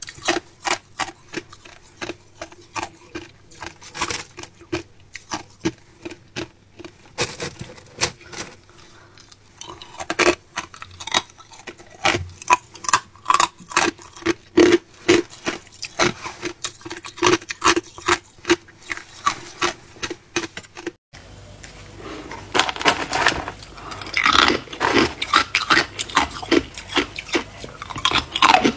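Hard ice being bitten and chewed: a steady run of sharp crunches, two or three a second. About three-quarters of the way through the sound changes to fuller, more crackling crunches.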